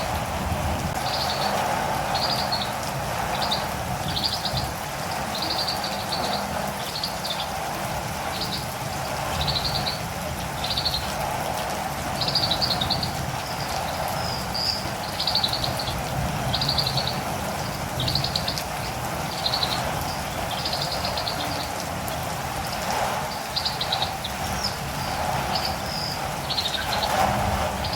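Catirumbava (olive-green tanager) calling, short high chirps repeated about once a second, over steady rain.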